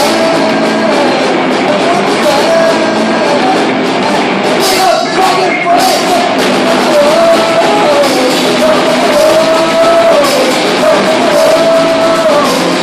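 Punk rock band playing live: electric guitars, bass and drums, with the singer's voice on top, loud and continuous.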